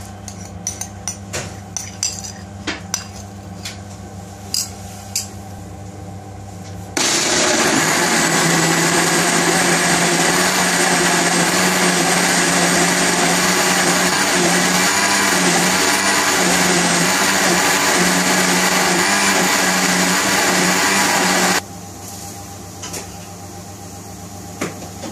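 Countertop blender switched on about seven seconds in, running at a steady speed for about fifteen seconds as it blends a full jug of yogurt, milk and fruit, then switched off abruptly. Before and after it come light clicks and knocks of the jug and lid being handled.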